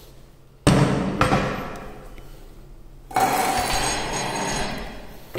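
Handling noise on a wooden desk: two sudden loud knocks, the first less than a second in with a quick second hit after it, the other about three seconds in, each trailing off over a second or two.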